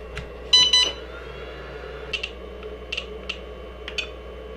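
IDST Q6 Plus smart LiPo charger giving one short, loud electronic beep about half a second in, followed by four faint clicks as its buttons are pressed.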